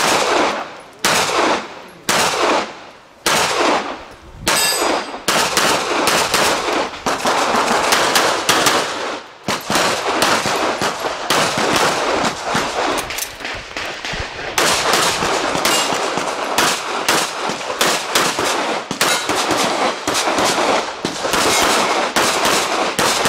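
Rapid handgun fire: a few single shots and pairs about a second apart in the first five seconds, then long strings of shots in quick succession with range echo, broken by a short pause about nine seconds in.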